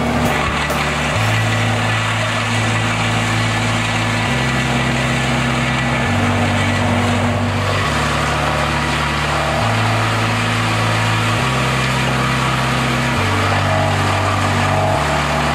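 Carlton 2012 disc wood chipper running steadily while leafy branches are fed in. Background music with a low bass line, changing note about every second and a half, is mixed in.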